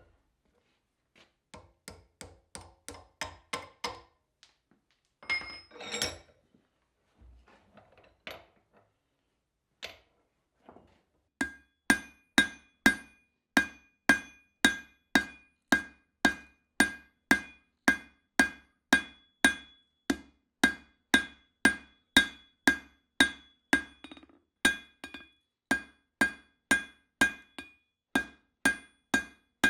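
A forging hammer striking steel on an anvil. There are some lighter, quicker taps in the first few seconds and a brief clatter about six seconds in. From about eleven seconds there are steady heavy blows about two a second, each with a ringing tone, with a short break near the end.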